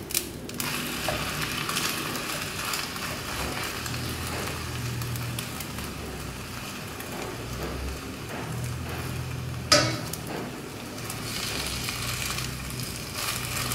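Thin omelette of beaten egg sizzling steadily in oil in a wok. The spatula knocks sharply against the pan twice: once just after the start and louder about ten seconds in.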